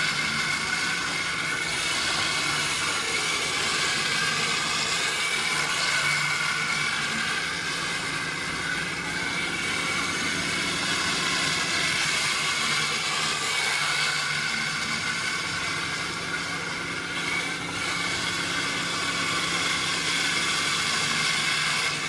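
Twin small brushless electric motors of a radio-controlled tracked snow cat (Kyosho Blizzard) driving, with a steady high whine that wavers a little with throttle over the hiss of tracks and gearing. The owner says the power blips on and off under throttle, which he suspects needs a BEC.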